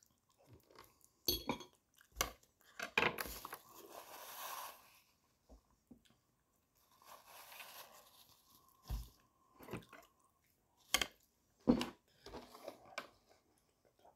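Cutlery knocking and scraping on a plate while someone chews a mouthful of rice. There are several sharp clinks scattered through, the loudest near the end.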